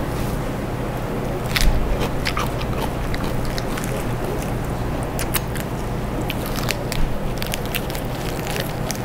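Crisp lettuce and perilla leaves crackling and clicking as a pork-belly ssam wrap is folded by hand, then bitten into near the end, over a steady low hum.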